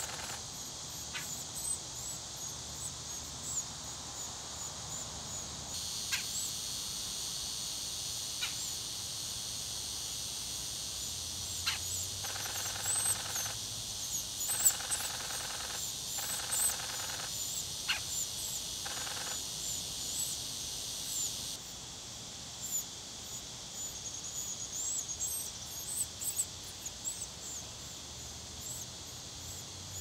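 Red-bellied woodpecker nestlings begging from inside the nest cavity as an adult feeds at the hole: many short, high squeaky calls, repeated throughout. A steady high hiss joins about six seconds in and cuts off abruptly about twenty-one seconds in.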